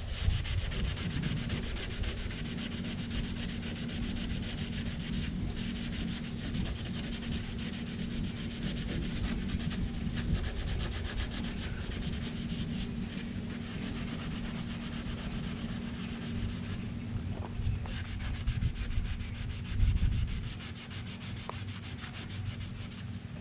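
Rubbing compound being scrubbed by hand into a car fender's painted steel, a steady back-and-forth rubbing as it cuts into a mark in the paint.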